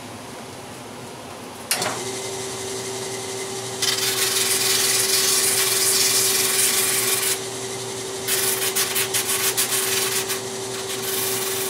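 A large drum sander's motor starts about two seconds in and hums steadily. From about four seconds in, a wooden intarsia piece is pressed against the sanding drum with a loud rasping hiss, rough-shaping the wood; it pauses briefly past halfway, then comes back in uneven strokes.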